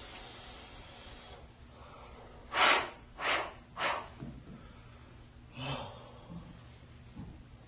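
A man snorting and blowing his nose into a handkerchief in short blasts: three sharp ones about half a second apart, a little over two seconds in, the first the loudest, and a weaker one near the end.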